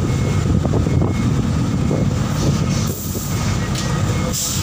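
Steady low rumble of a docked ferry's engines and machinery heard from its deck, with faint steady humming tones over it.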